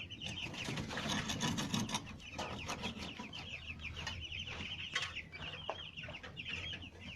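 A flock of chickens calling all at once: a dense, continuous chatter of short high peeping notes, with scattered sharp clicks.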